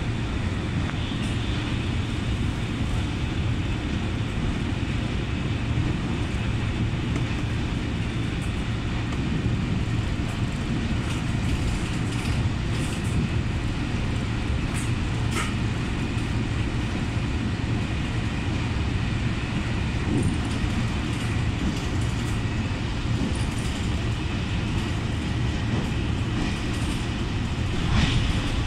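Passenger train running at speed, heard from inside the carriage: a steady low rumble with a few short clicks and one louder knock near the end.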